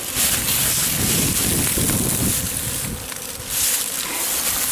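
Honeybee swarm buzzing as a faint steady hum, under wind buffeting the microphone as a heavy low rumble that eases about two seconds in.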